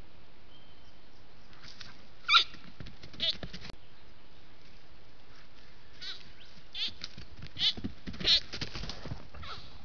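Young spiky sambar stag calling: a string of short, high bleating calls. The loudest comes about two seconds in, a weaker one a second later, then five or six more in quick succession in the second half.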